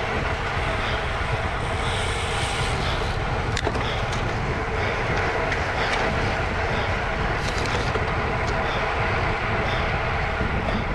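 A steady rush of wind buffeting the microphone of a camera riding along on a racing bicycle at speed, with road and tyre noise underneath and a few faint clicks.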